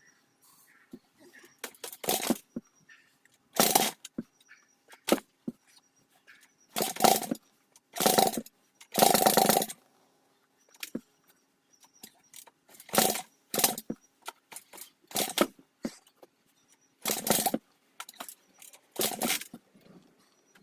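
Dirt bike engine being kicked over again and again, about eleven kicks at uneven spacing, each a short burst of cranking that never catches. The engine will not fire, which the rider puts down to an uncleaned carburettor and fuel that has probably gone stale.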